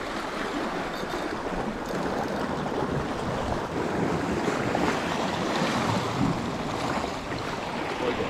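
Sea surf washing in steadily, with wind on the microphone.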